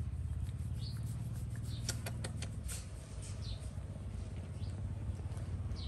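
A monkey grooming a man's hair: faint clicks and picking sounds from its fingers in the hair, a cluster of them about two to three seconds in, over a steady low hum, with a few faint short high chirps.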